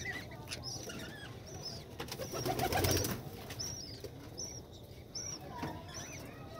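Budgerigars in a nest box giving a run of short, high cheeps, repeated roughly every half second, over some lower warbling chatter. A brief rustling thump comes about two and a half seconds in.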